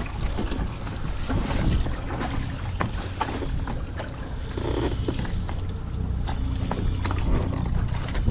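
Knocks and clatter of an engine's raw-water sea strainer being opened and its basket cleaned out of crabs, over a steady low hum.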